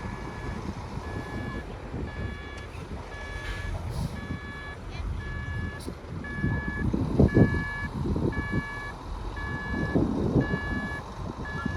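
Reversing alarm on a heavy machine beeping steadily at an even pace, over the rumble of its engine, which swells twice during the beeping.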